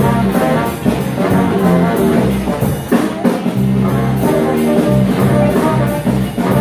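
Live band playing an instrumental passage, a horn lead holding notes over bass and drums.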